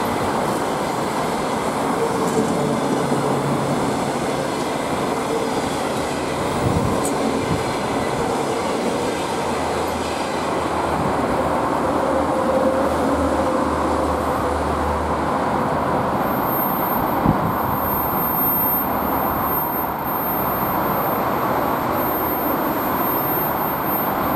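Passenger coaches rolling past at speed: a loud, steady rumble of steel wheels on the rails with some clatter, carrying on as the last coach pulls away. A single short knock comes about two-thirds of the way through.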